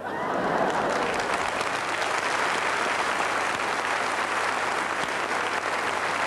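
A large theatre audience applauding, starting suddenly right after a punchline and holding steady.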